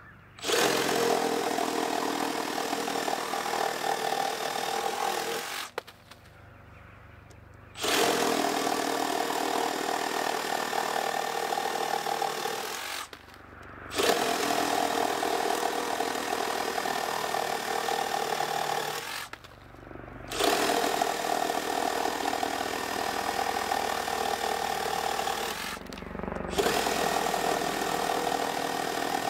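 Makita DJR187 18V brushless cordless reciprocating saw cutting through a thick wooden beam. It runs in five long bursts of several seconds each, stopping briefly between them.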